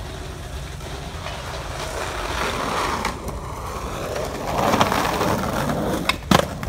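Skateboard wheels rolling over rough concrete, the rumble growing louder towards the middle, then a few sharp clacks of the board hitting the ground near the end.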